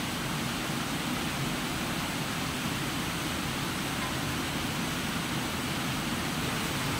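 A steady, even noise with no distinct tone, rhythm or knocks, like machinery running.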